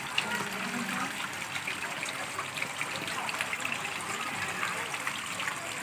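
Running water trickling and splashing steadily.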